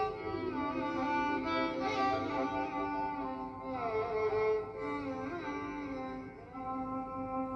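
Recorded Odissi dance music in raag Mohana: a slow violin melody with notes that slide down and up between held pitches, and no drum.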